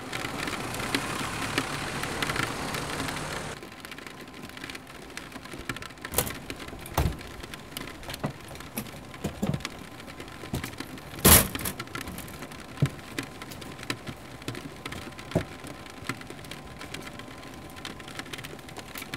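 Rain. Steady, heavier patter for the first three and a half seconds, then lighter rain with single drops ticking and knocking at irregular moments. One louder knock about eleven seconds in.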